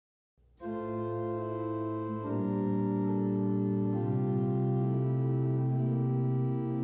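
Organ playing slow, sustained chords in four-part harmony, starting about half a second in and moving to a new chord about two and four seconds in.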